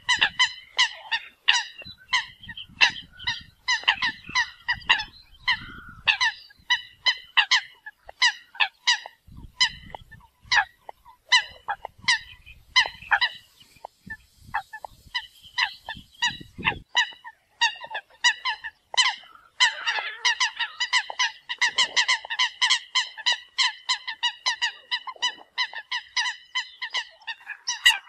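Eurasian coots calling: a rapid run of short, sharp calls, several a second. About two-thirds of the way through, the calls thicken into a dense, overlapping chorus.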